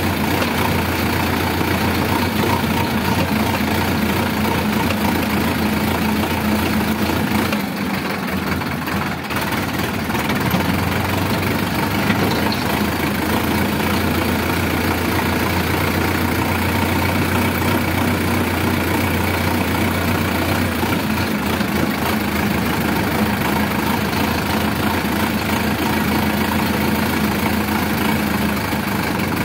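Sonalika DI 750 tractor's diesel engine running steadily as the tractor drives, heard close up from the driver's seat. The engine note dips briefly about eight seconds in, then settles back to a steady run.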